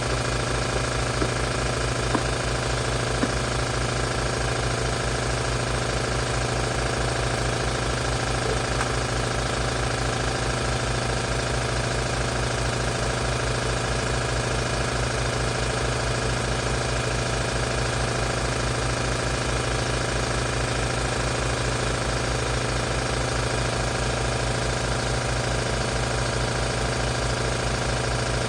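Air compressor running steadily, its pump making a fast, even pulsing hum.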